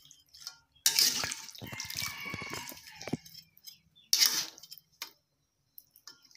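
Metal spatula stirring chicken pieces in watery sauce in a metal wok: scraping and clinking against the pan with liquid sloshing. It comes in two bursts, a long one from about a second in and a short one a little past the middle.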